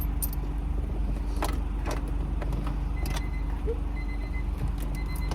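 Car engine idling, heard from inside the cabin: a steady low hum with a few faint clicks.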